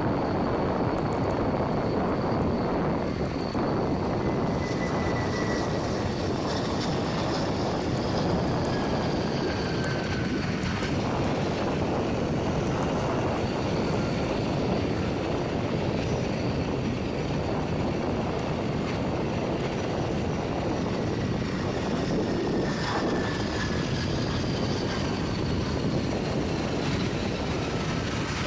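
Military jet engines running on a flightline as aircraft taxi: a steady roar with several high whines that slowly fall in pitch.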